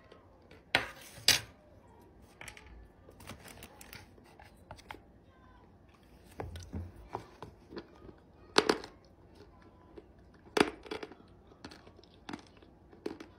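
A plastic tub of clay soaked in water being handled: scattered clicks and knocks of plastic and spoon, with a few sharper knocks about a second in and twice more later.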